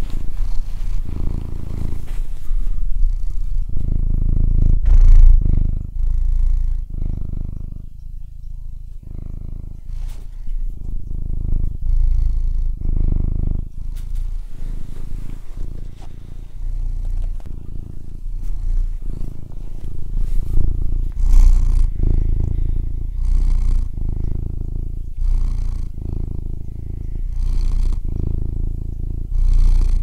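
Domestic cat purring close up: a low, loud rumble that swells and eases with each breath, in and out about once every second or so.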